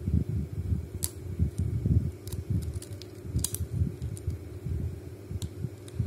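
A Master dial combination padlock being handled and its dial slowly turned in the fingers: low rubbing and bumping of hands on the lock, with a few faint sharp metal clicks scattered through, over a low steady hum.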